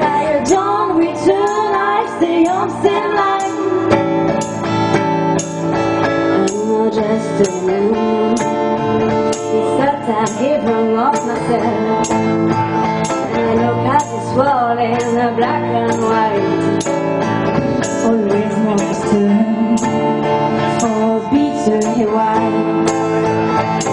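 Rock band playing a song live, drums keeping a steady beat under guitar.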